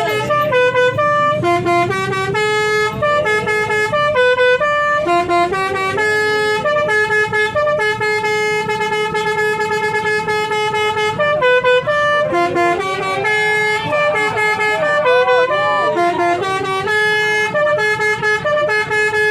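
Basuri telolet multi-tone horn playing a tune: stacked horn notes that step up and down in pitch, some short and one held for several seconds about halfway through, sounding without a break.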